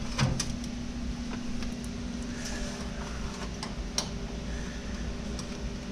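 Scattered light clicks and taps of a hand wrench working on the assembly's bolts, over a steady background hum.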